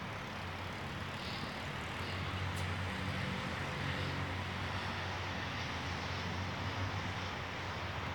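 A steady low engine drone with a faint hiss, growing a little louder about a second in.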